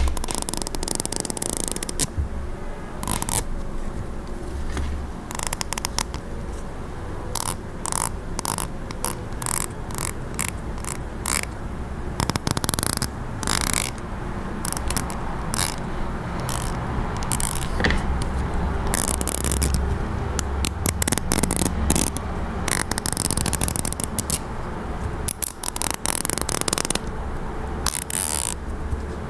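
A comb being scraped and stroked again and again, in irregular short strokes, some bright and crisp.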